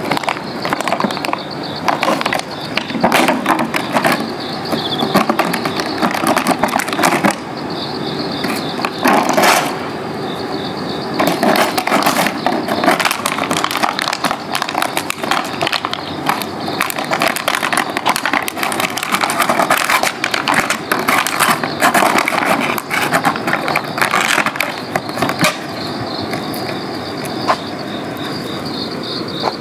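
Plastic lunch box scraping, clattering and knocking on concrete as a puppy pushes, drags and mouths it, in an irregular run of scrapes and knocks with no long pause.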